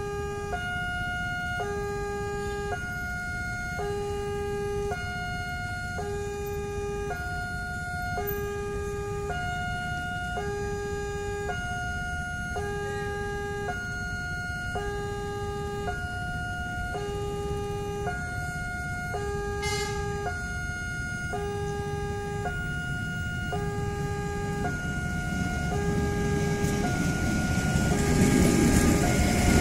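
Level crossing warning alarm sounding a steady two-tone electronic signal, alternating between a lower and a higher tone about once a second, warning that a train is coming. Near the end the rumble of a passenger train drawing near grows louder.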